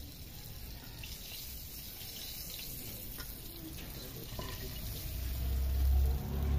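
Hot oil sizzling steadily in a wok as fried chicken pieces are lifted out with a slotted spoon. From about five seconds in, a loud low rumble covers it.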